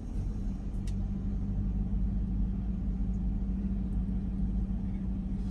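Car engine idling steadily with a low hum, heard from inside the cabin.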